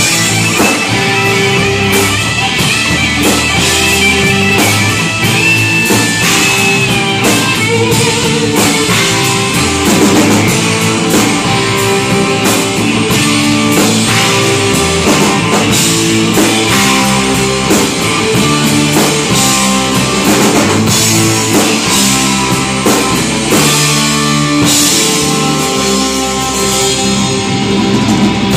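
Live rock band playing: two electric guitars, electric bass and a Ludwig drum kit, with a high guitar line bending in pitch through the first several seconds.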